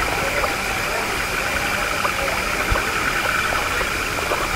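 Night chorus of wetland frogs and insects: a steady, high, pulsing trill.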